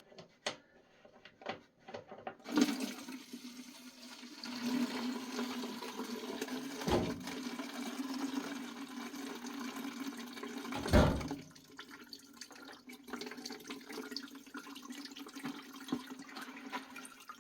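Solvent rushing and gurgling as it is drained and cleaned up, over a steady low motor hum, with two loud knocks partway through.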